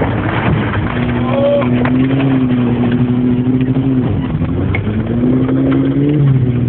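Mitsubishi Colt's engine at high, steady revs heard from inside the cabin, over a constant rushing noise. Its pitch drops sharply about four seconds in, then climbs again.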